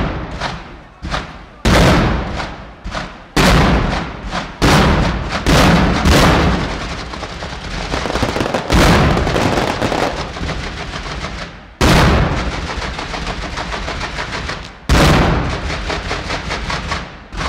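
Aerial fireworks firing in quick succession: sharp, loud bangs about once a second, each trailing off in an echo. In the middle comes a denser run of rapid small pops, and big single bangs follow about twelve and fifteen seconds in.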